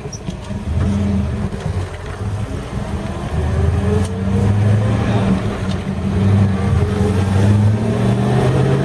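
Holden Kingswood's 253 V8 engine pulling under load as the car is driven, its note climbing as it accelerates and growing louder from about three and a half seconds in.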